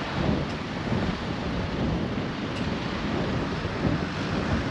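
Wind buffeting the microphone: a gusting low rumble over a steady hiss.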